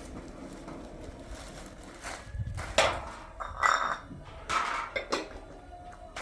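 Hard objects knocking and clinking together, about half a dozen sharp clatters over the last four seconds, some ringing briefly like metal or crockery.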